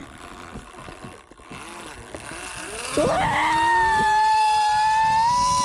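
Flying fox (zipline) trolley running along its steel cable. A loud whine starts suddenly about three seconds in and holds on several pitches, one of which slowly rises.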